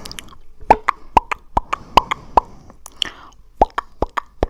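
Close-miked ASMR mouth sounds: a quick, irregular string of sharp wet pops and clicks, about fifteen, over a faint breathy hiss.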